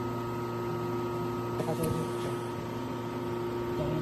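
Steady electrical hum of laser welding equipment, several constant tones held throughout, with a few faint clicks about one and a half to two seconds in.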